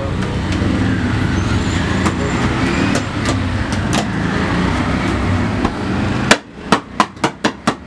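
A steady low motor rumble, which stops abruptly about six seconds in. A quick run of about six sharp knocks follows, roughly four a second.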